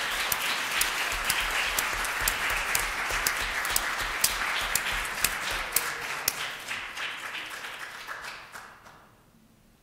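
Audience applauding, with single sharp claps standing out; the applause fades out near the end.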